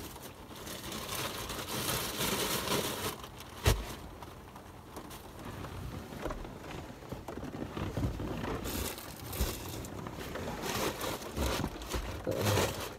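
Plastic bags and food packaging rustling and crinkling as someone rummages through them, with one sharp knock a little under four seconds in.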